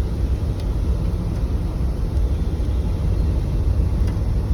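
A vehicle driving along: a steady low engine and road rumble, with a few faint clicks.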